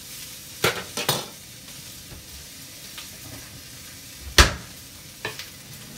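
Frozen pork roast sizzling steadily as it sears in hot ghee in an Instant Pot on sauté, the water on the frozen meat spitting in the fat. A few sharp knocks cut through it, with one heavy thump about four seconds in.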